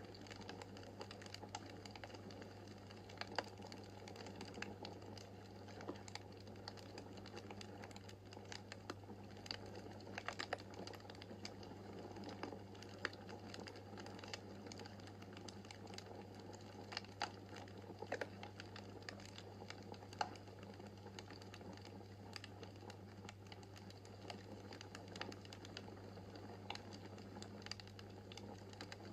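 Wood fire crackling in a fireplace: irregular small sharp pops and snaps over a faint steady low hum.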